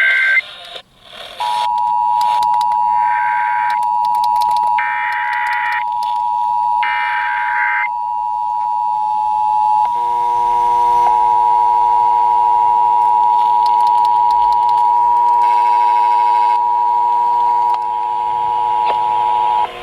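Emergency Alert System broadcast of the National Periodic Test. A brief SAME data-header burst gives way, about a second and a half in, to the steady two-tone attention signal. Over that tone, a second station's SAME header screeches in three times, about two seconds apart. About halfway through, the tone mix changes as another station's attention tones join, and everything cuts off just before the end.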